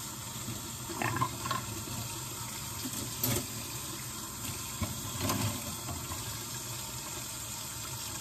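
Kitchen tap running steadily into a sink during dishwashing, with a couple of brief knocks of dishes about three and five seconds in.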